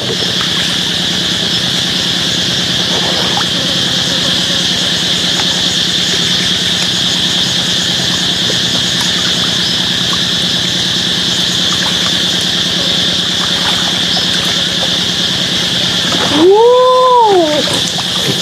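A steady high insect drone with a low hum beneath it. Near the end, one loud call rises and then falls in pitch.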